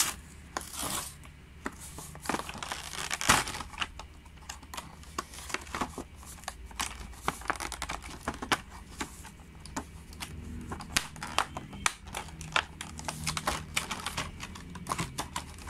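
Plastic blister pack and card backing of a five-car die-cast toy set crinkling and crackling as fingers pry and tear it open: a stream of irregular sharp crackles, with one louder snap about three seconds in.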